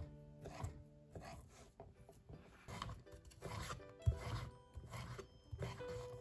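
Hand food preparation: a series of irregular, short scraping strokes, under soft background music.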